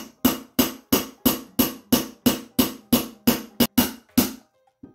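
Small brass hammer striking a brass punch to drive a stubborn roll pin into an AR lower receiver's trigger guard: about a dozen sharp, ringing metal taps, about three a second, stopping near the end.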